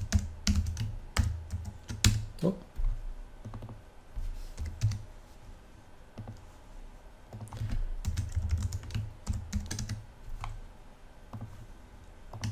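Typing on a computer keyboard: runs of quick keystrokes with dull thuds under them, a sparser lull of a couple of seconds in the middle, then more typing.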